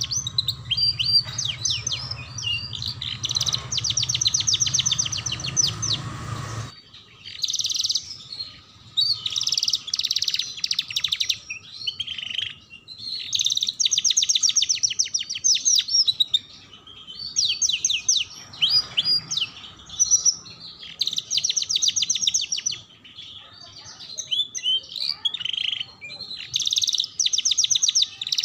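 Domestic canary singing: phrases of rapid trilled rolls and chirps, separated by short pauses.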